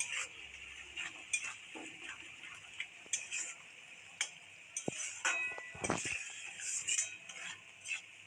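A spatula scraping and clinking against a kadai while coconut paste is stirred into a thick masala, in irregular knocks over a steady hiss.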